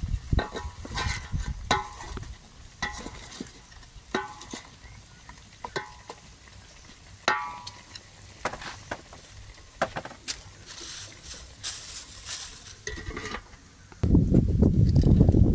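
A wooden spoon stirring beef and vegetables in an aluminium cooking pot, knocking against the metal sides with short ringing clinks about once or twice a second, over a faint sizzle. Near the end a loud low rumbling noise takes over as the lid goes on.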